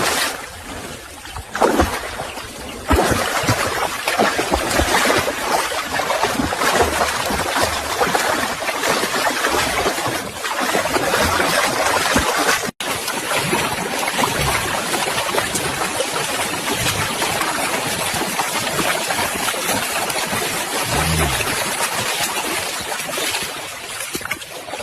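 Continuous splashing, rushing water, with a few low thumps and a brief dropout about halfway through.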